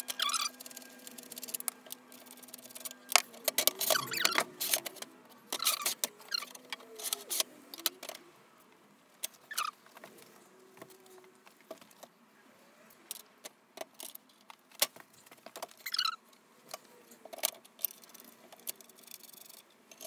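Hardwood workbench parts being handled and screws worked by hand with a screwdriver: scattered knocks, clicks and rattles of wood and hardware, with a few short squeaks.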